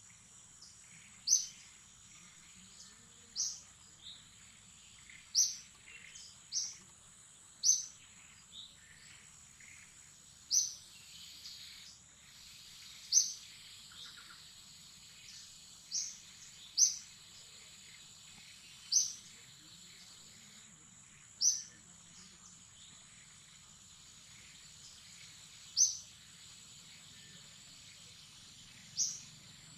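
A bird repeating a single short, sharp, high chirp about fifteen times, at uneven gaps of one to four seconds, over a faint steady high-pitched insect drone.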